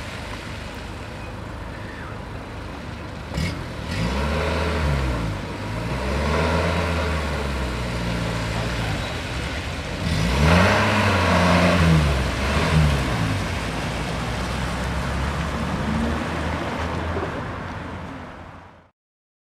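Engine of a 1950s Mercedes-Benz cabriolet moving off at low speed, its note rising and falling several times as the gears are taken up. There is a short click about three and a half seconds in, and the sound fades out near the end.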